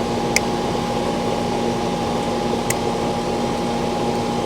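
Steady hum of a running central air-conditioning condensing unit, with a steady low tone and a higher one. Two light, sharp clicks sound, about half a second in and near three seconds in.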